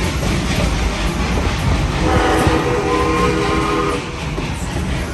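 Amusement-park railroad train rolling along with a steady rumble and rattle of its cars, and its whistle blown once for about two seconds as a chord of several notes near the middle.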